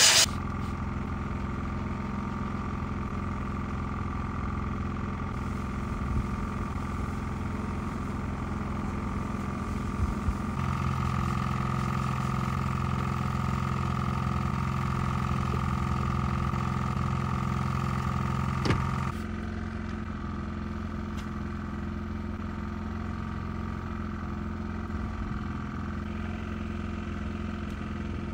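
Steady motor hum made of several constant tones, whose pitch and tone change abruptly twice, about ten and nineteen seconds in.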